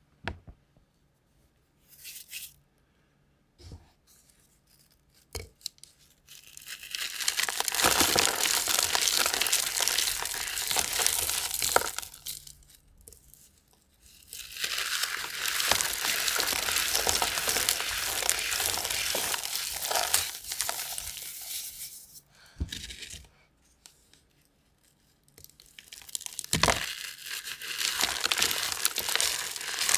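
Dyed gym chalk blocks crumbling and crunching as fingers squeeze and break them. A few short, sharp clicks come first, then three long spells of dense crunching.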